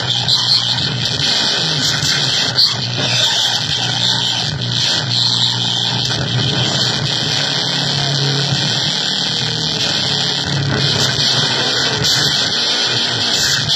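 Harsh electronic noise music from a drum machine and keyboard: a loud, steady wall of filtered noise over a low droning hum, with a sharp click about two and a half seconds in.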